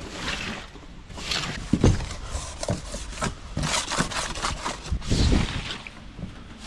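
Construction debris being swept and scraped up: a run of irregular scraping and rustling strokes, with heavier knocks about two seconds and five seconds in.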